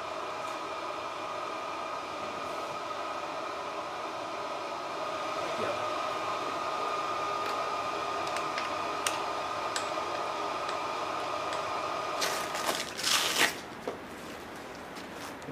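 Steady fan-like hum with a thin high whine, a few light clicks, then, about twelve seconds in, a loud rough rustle and scrape of flight gear being handled that lasts about a second.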